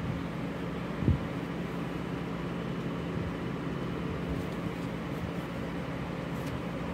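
Steady background hum and hiss with a constant low tone, like a running fan or air conditioner. One dull thump sounds about a second in.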